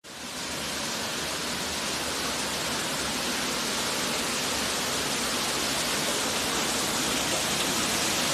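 Floodwater rushing and pouring steadily inside a building, an even hiss-like rush with no breaks.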